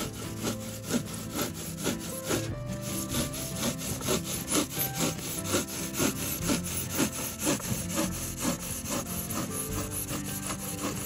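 Hand saw cutting through a styrofoam insulated concrete form block (ice block), in steady back-and-forth strokes about two to three a second.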